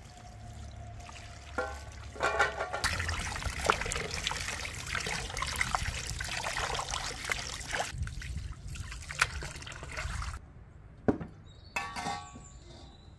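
Water from a garden hose running into a stainless steel bowl and splashing over pieces of raw rooster as they are rinsed and rubbed by hand; the stream starts about three seconds in and stops suddenly near ten seconds. The steel bowl clinks and rings briefly near the start and again near the end.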